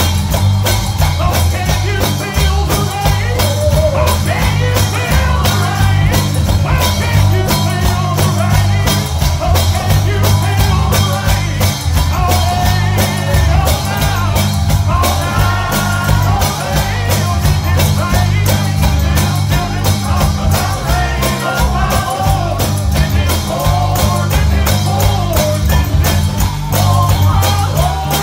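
Live gospel music: a band playing with a steady beat and a heavy bass, with singing voices over it.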